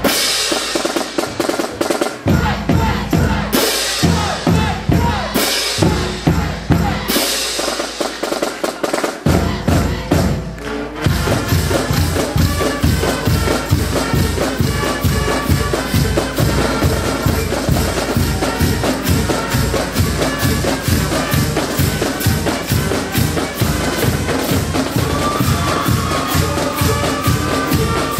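Upbeat dance music with a heavy drum beat, played for a cheerleading routine. A few crash-like hits in the first part, a brief break about eleven seconds in, then a steady, driving beat.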